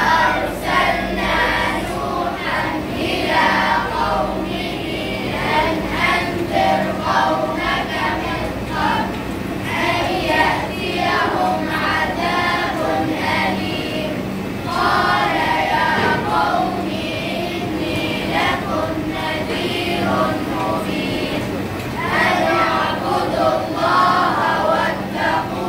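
Children's voices reciting Quranic verses in a melodic chant, phrase by phrase with short pauses between.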